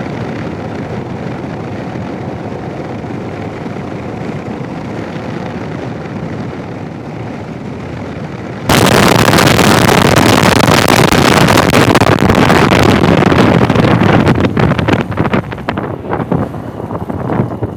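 Steady ride noise of a Royal Enfield Himalayan motorcycle picked up by the helmet headset, then, about nine seconds in, a sudden switch to very loud wind roar buffeting the headset's bare external microphone, turning choppy near the end. This happens when a Garmin GPS prompt disables the Sena 10C Evo's in-helmet microphone and leaves the external one fully open.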